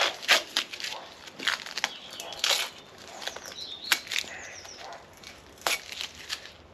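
Masking tape being peeled off a painted rotary engine front cover: a run of short, uneven rips and crackles.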